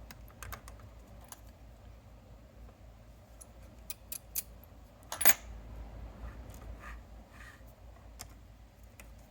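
Scattered light clicks and taps of small plastic screws being set into a circuit board's standoffs and turned in a little by hand, with one sharper click about five seconds in.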